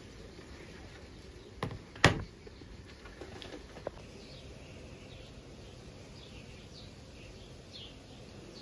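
Birds chirping faintly in short, high calls over a steady background hum. About two seconds in come two sharp knocks close together, the second the loudest sound, and a lighter click follows a couple of seconds later.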